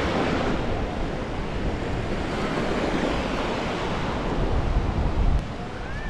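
Small waves breaking and washing up a sandy shore, with wind buffeting the microphone; the wind rumble is heaviest about five seconds in, then eases.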